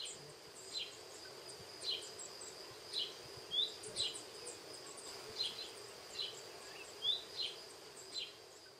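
Small birds chirping: short high notes about once a second, most falling in pitch and a few rising, over a steady high-pitched whine. The sound fades near the end.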